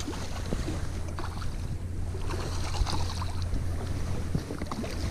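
A hooked smallmouth bass splashing and thrashing at the surface in shallow water, heard as irregular small splashes over a steady rumble of wind on the microphone.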